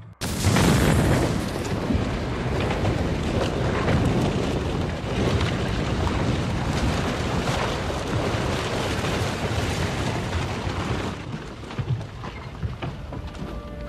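A bomb explosion goes off suddenly after a brief silence, followed by a long rumble with crackling that eases off after about ten seconds.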